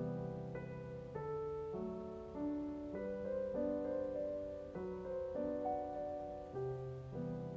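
Gentle background piano music, a melody of single notes moving along about every half second.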